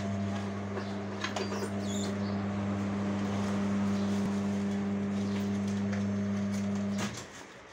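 Electric motor and gearbox of a tyre-changing machine running with a steady hum as the turntable turns a large JCB tyre to work its bead onto the rim. It cuts off about seven seconds in.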